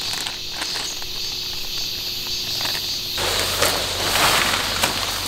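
Steady high insect chirring. About three seconds in it gives way to a denser hiss of rain with rustling and ticking from a nylon tent fly being handled.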